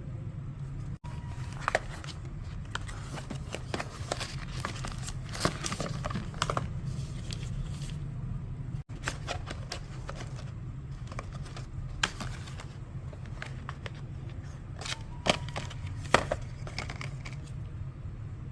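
Hands unboxing a phone: packaging rustling, crinkling and tearing, with scattered sharp clicks and light knocks over a steady low hum.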